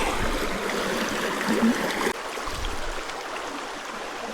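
Creek water running over rocks, a steady rushing babble that drops somewhat in level about two seconds in.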